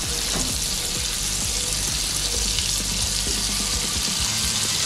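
Fresh prawns sizzling steadily in hot butter and oil in a frying pan.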